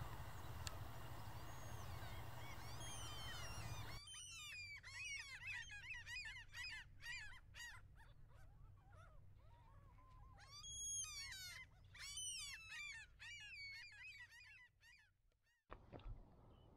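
A flock of birds calling, many short sharp calls overlapping busily. For the first four seconds or so the calls sit under a steady rushing noise; the calls then come through clearly and stop suddenly near the end.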